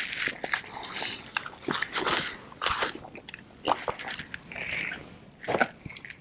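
Chicken wings being bitten and chewed off the bone without hands: irregular wet smacks and clicks of mouths on meat.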